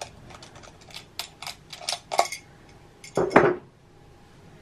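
Camera gear being handled: a quick run of small clicks and clinks as the camera is taken off its stand, then a louder knock about three seconds in.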